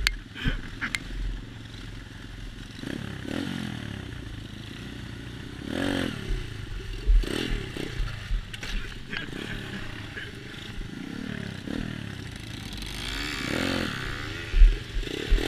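A 125cc pit bike engine revving up and down as it is ridden over rough ground, with rattles and knocks from the bike and wind buffeting the microphone.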